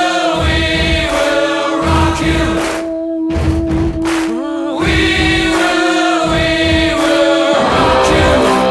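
Background music: voices singing together like a choir over a held steady note, with the music changing to a different section near the end.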